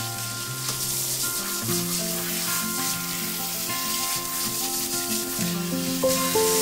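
Handheld shower head spraying water over a dog's wet coat, a steady hiss, with background music of long held notes underneath.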